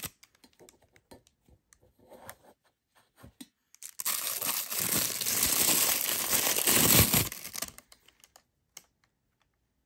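Thin clear plastic wrapping crinkling loudly for about four seconds as a wristwatch is pulled out of its plastic bag, after a few faint handling rustles and clicks.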